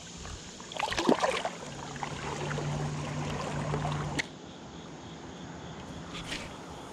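Steady rush of river water around a wading angler, with splashing and handling noises about a second in as a small smallmouth bass is let go. A low steady hum runs underneath and cuts off with a sharp click about four seconds in, as a new cast goes out.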